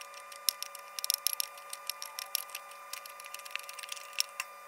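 Irregular sharp metallic clicks and ticks as a 5/16-inch tap, held in a drill press chuck, is turned by hand to start threads in an aluminum wheel. A steady hum runs underneath.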